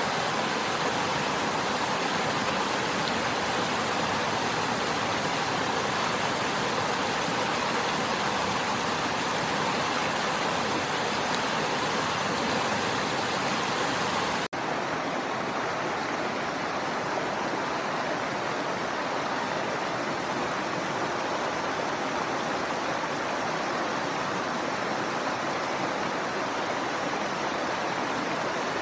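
Steady rush of flowing water from a stream and waterfall. About halfway there is a brief break, after which the rush is slightly softer.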